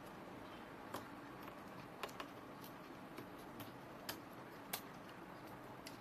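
Irregular sharp clicks and taps of small tools and plastic parts as a POCO M3 smartphone is taken apart, over a faint steady hiss.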